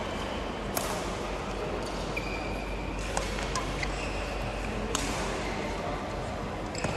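Badminton rackets striking a shuttlecock: a few sharp hits that echo in a large sports hall, the loudest about a second in and about five seconds in, with brief sneaker squeaks on the court floor and a steady hall background.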